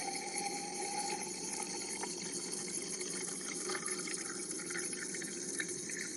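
Soda spraying out in a steady liquid rush, as when a shaken soda is squirted at someone.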